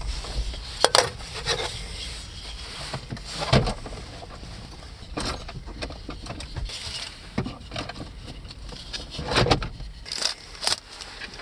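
Handling noise from unpacking a cardboard box and its accessories: scattered knocks, taps and scrapes, the loudest about three and a half and nine and a half seconds in.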